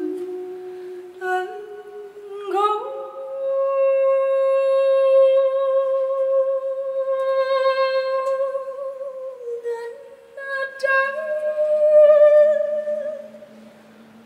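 Wordless voices holding long sung notes. One voice slides up about two and a half seconds in and holds a long steady note. A new note follows after about ten seconds, over a lower held tone that comes in near the end.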